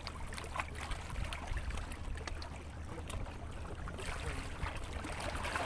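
Seawater lapping and splashing at the shoreline, rising a little about four seconds in, with scattered small clicks over a steady low rumble.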